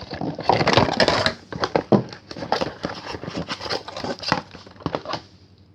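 Cardboard box and packaging being handled and pulled open: rustling and crinkling with scattered knocks and clicks, dying away near the end.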